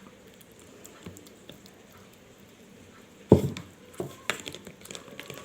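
A spoon stirring mashed garlic and olive oil in a jar. It is faint at first, then a sharp knock comes a little past halfway, followed by a run of lighter clicks and taps.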